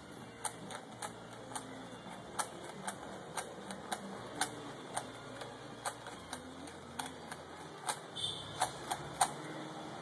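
Plastic 3x3 Rubik's cube being solved by hand: its layers click and clack as they are turned, irregular clicks about two or three a second, with a quick run of turns near the end.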